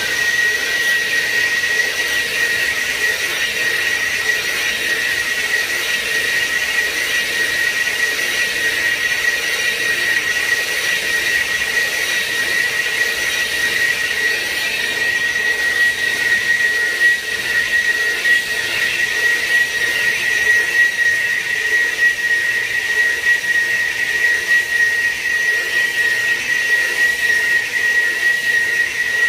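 EFCO TD-2.02 portable lathe running and single-point machining a flange: a steady high whine with a hiss that holds at one pitch throughout.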